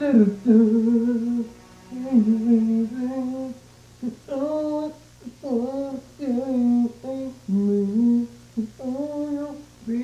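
A person humming a slow, wordless tune in held notes that slide up and down, phrase by phrase with short breaks, over a steady low hum.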